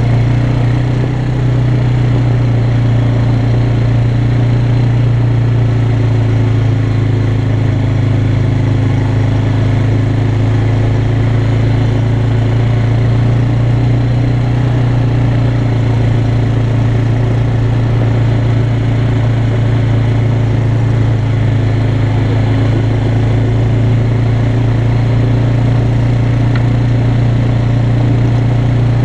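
Yamaha Bear Tracker 250 ATV's single-cylinder four-stroke engine running at a steady, even speed while the quad drives along a gravel track. The engine note holds steady, with only a brief dip about a second in.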